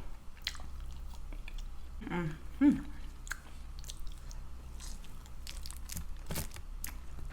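Close-miked mouth sounds of chewing and biting into Cajun-seasoned chicken wings: many short, wet clicks and smacks. A brief voiced sound comes about two seconds in.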